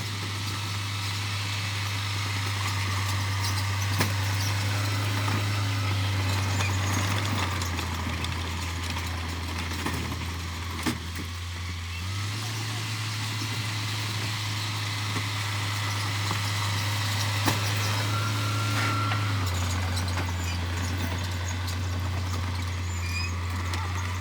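Diesel engine of heavy construction machinery running steadily with a deep drone that shifts in pitch a few times, with a few sharp knocks.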